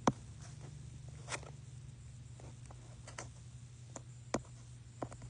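Scattered clicks and light rustles of dolls and small toys being handled, over a steady low hum.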